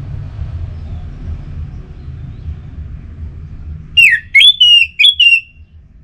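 Orange-headed thrush singing a short phrase of loud, clear whistled notes, about four quick sweeping notes, starting about four seconds in. A low rumble runs underneath before the song.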